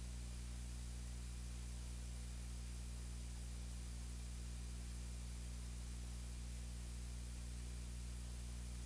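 Steady low electrical hum with a stack of overtones and a constant hiss, unchanging throughout, with no voice audible.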